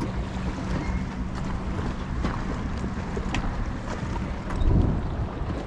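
Wind buffeting the microphone over choppy river water, a steady low rumble with a faint low hum underneath and a stronger gust about five seconds in.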